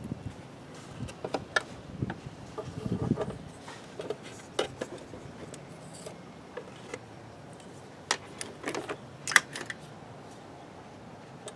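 Irregular clicks, taps and light knocks of a metal socket extension bar being handled and seated inside a plastic air filter housing, with a short spell of rubbing and clatter about three seconds in and a quick run of clicks near the end.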